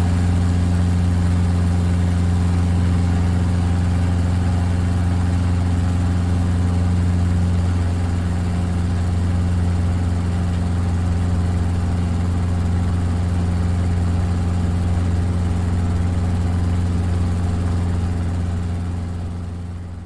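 Helicopter heard from inside the cabin: a steady, low engine and rotor drone that fades out over the last couple of seconds.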